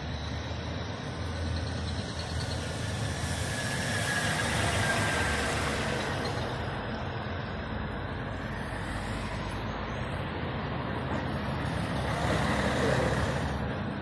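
Street traffic passing close by: cars and heavy diesel trucks, with one vehicle swelling past about four seconds in and a concrete mixer truck going by, loudest near the end.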